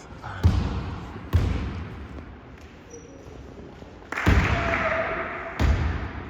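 Basketball bouncing on a gym floor: four heavy thuds, two close together near the start and two more later. A stretch of louder, noisier sound follows the third.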